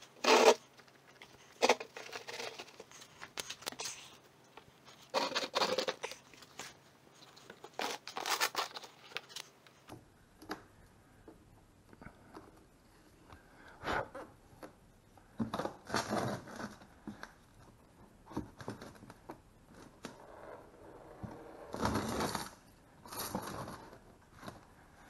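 Bubble wrap rustling and crinkling in short bursts as it is handled, then, about ten seconds in, a series of short tearing peels as the red protective liner is pulled off the side skirt's double-sided adhesive tape.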